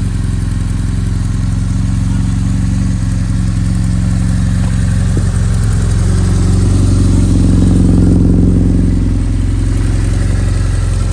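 BMW R1100S Boxer Cup replica's air/oil-cooled flat-twin boxer engine idling steadily, swelling a little louder for a couple of seconds past the middle.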